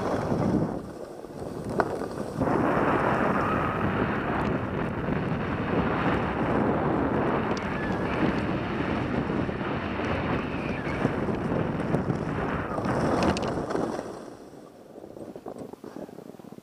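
Wind rushing over a helmet-mounted camera's microphone while skiing downhill, a steady loud rush that eases off sharply about 14 seconds in.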